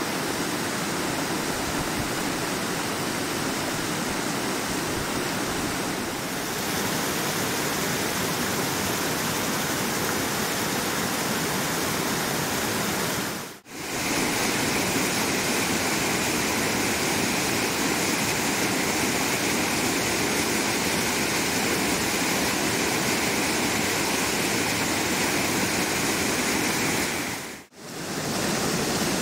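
Mountain stream rushing over rocks and spilling down small waterfalls: a steady, full wash of water, dropping out briefly twice.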